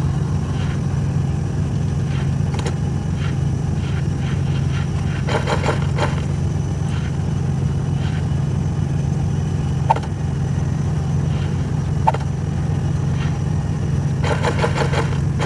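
Diesel truck engine running steadily: an even low hum with a few faint clicks over it.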